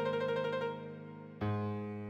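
Solo piano playing a slow passage: a held chord with rapid rippling notes in the middle register, then a new low chord struck about one and a half seconds in.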